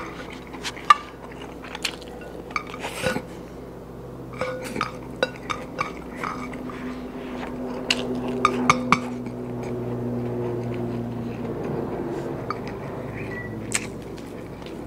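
Eating by hand from ceramic plates: short clinks and clicks of fingers and food against the dishes, scattered through, with a cluster about eight to nine seconds in, and some chewing. A low steady hum runs from about six to about twelve seconds in.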